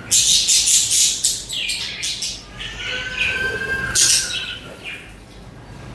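A flock of budgerigars chattering and chirping. There are loud, harsh bursts of chatter for the first two seconds, a few drawn-out whistled notes, another loud burst about four seconds in, and then it goes quieter.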